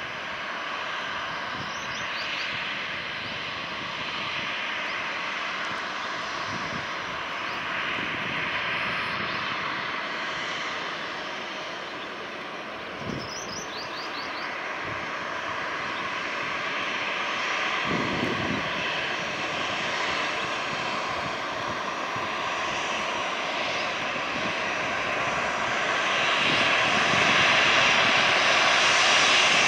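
Boeing 737 airliner's jet engines running as it moves along the runway: a steady rush with a thin whine held on one pitch, growing louder near the end as it comes closer.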